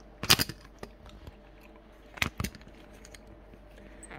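Sharp knocks and clatter of hard plastic computer parts being handled: a loud cluster about a quarter second in, a few small clicks, and a second cluster a little over two seconds in.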